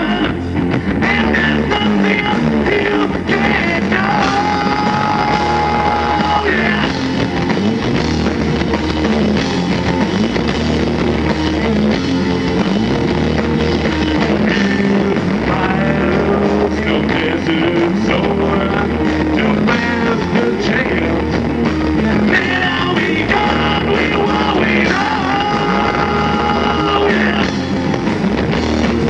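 Loud live rock band playing: electric guitars, bass and drums with a singer. There are long held notes twice, a few seconds in and again near the end.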